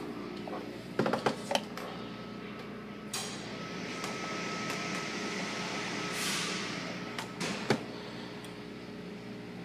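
Water from an automatic car wash spraying onto a car's windshield and body, heard from inside the cabin over a steady low hum. The spray swells to its loudest about six seconds in, with a few sharp knocks about a second in and again near the end.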